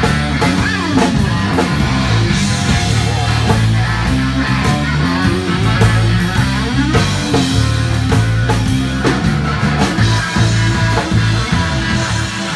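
Live blues-rock band playing an instrumental passage: electric guitar over bass guitar and drum kit, the guitar bending and sliding between notes.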